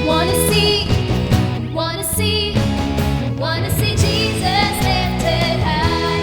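A band playing an upbeat worship song, with a lead melody line that bends and wavers in pitch over steady bass and drums.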